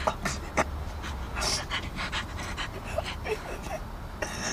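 An injured woman panting in short, uneven breaths, with faint moans.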